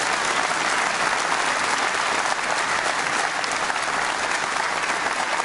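A conference hall audience applauding steadily.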